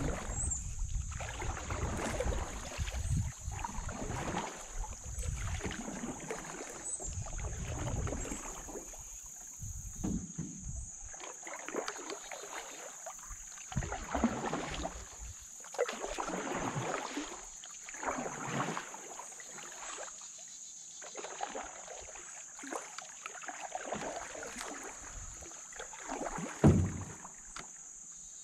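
Canoe paddle strokes pulling through calm river water, a swish about every two seconds. A single sharp knock comes near the end.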